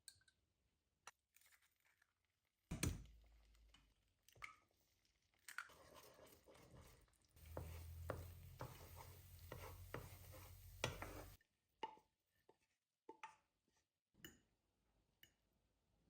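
Small objects being handled indoors: scattered clicks and knocks, one sharp knock about three seconds in. In the middle, a steady hiss with a low hum runs for about four seconds, then cuts off.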